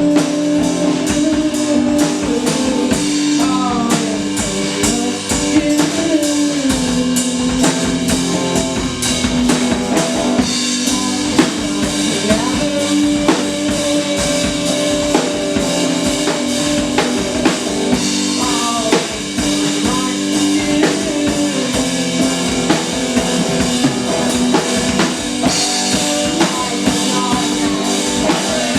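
Live indie rock band playing: a drum kit keeping a steady beat under guitar.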